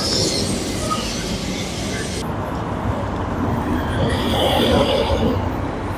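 Steady city street traffic noise, with a tram among the vehicles.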